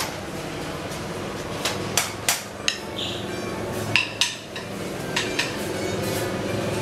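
Sharp knocks and clicks, about eight in loose pairs, as a door is unlatched and pushed open, over a steady low hum.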